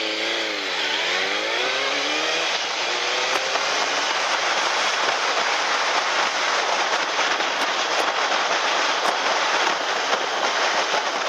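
Car engine easing off and then picking up again over the first couple of seconds, falling and then rising in pitch, followed by steady road and tyre noise from a moving car.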